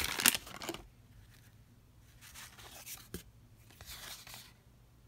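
Paper crinkling as a freshly opened wax pack of baseball cards is handled, loudest in the first second. Then the cardboard cards are slid apart and flipped by hand: two soft swishes and a small click.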